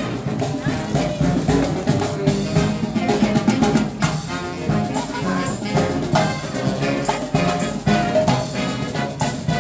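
Marching brass band with drums playing a march as it parades toward the listener, brass melody over a steady drum beat.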